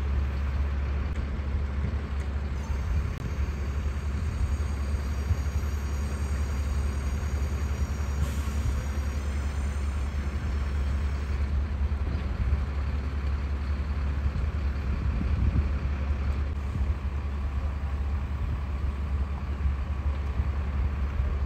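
Motor yacht's engines running at low speed as it manoeuvres close by: a steady deep rumble. A faint high whine sits over it from a few seconds in until about halfway.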